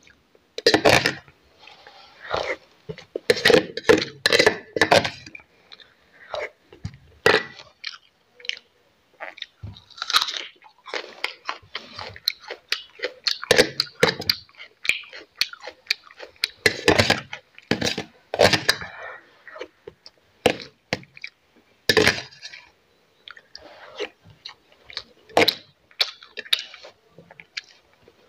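A person eating close to the microphone: irregular crunching and chewing of fried rice and raw onion.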